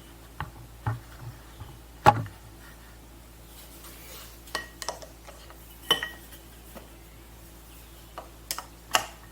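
Metal pump parts and hand tools clinking and knocking in a string of separate sharp strikes as a jet ski pump is taken apart by hand, the loudest knock about two seconds in.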